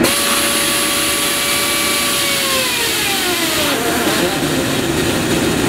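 RAD pneumatic torque wrench running on a flange nut: its air motor whines over a loud hiss of exhaust air. A little over two seconds in, the whine slides down in pitch over about a second and a half as the motor slows, typical of the bolt taking up torque, leaving the hiss and rumble of the tool.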